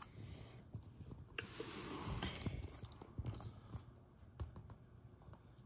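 Light handling noises: scattered small clicks and taps, with a short scraping rustle about a second and a half in.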